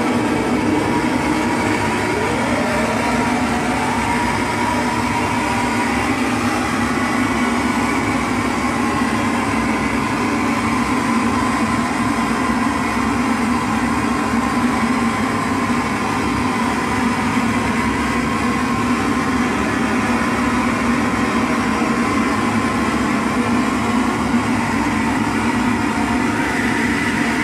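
Live electronic noise music from a table of guitar effects pedals and a small mixer: a dense, steady droning wall of noise with a strong low hum and thin tones sliding in pitch, one rising a few seconds in.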